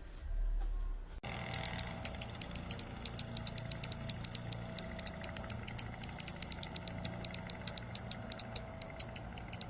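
Hummingbird giving rapid, high-pitched chip calls, several a second, starting about a second in.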